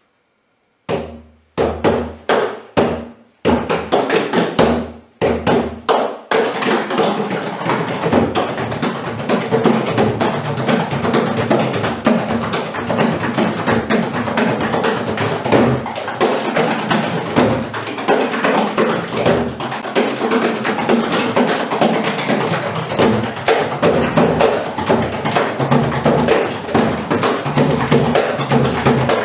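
Three bodhráns, frame drums struck with wooden beaters, played together: a handful of separate strokes about a second in, then a fast, continuous rolling rhythm from about six seconds in.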